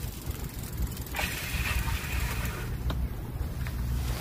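Low rumble of wind buffeting the microphone, with a steady hiss and a couple of faint clicks.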